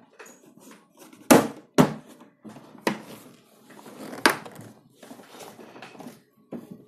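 Plastic casing of a Pureit Marvella RO water purifier being handled and pressed shut: four sharp plastic knocks, the two loudest close together about a second and a half in, with softer rubbing and handling between, as the cover is latched into place.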